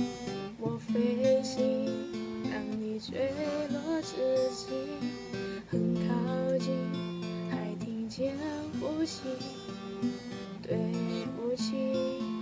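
Acoustic guitar playing the chords of a slow song, plucked and strummed, with notes ringing on continuously.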